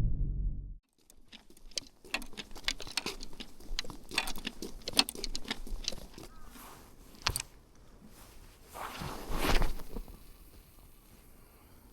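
Quick runs of small clicks and taps from fishing tackle being handled, with a brief louder swish about nine seconds in.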